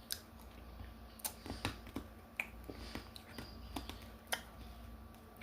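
Fizzing candy crackling in the mouth: scattered faint, irregular clicks and pops.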